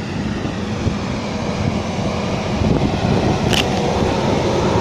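Riding mower engine running steadily close by, with one brief sharp click about three and a half seconds in.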